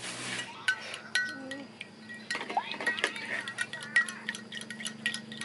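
Milk poured in a thin stream into a glass measuring jug, then a long metal spoon stirring the drink. The spoon clinks against the glass many times in quick succession, with short rings.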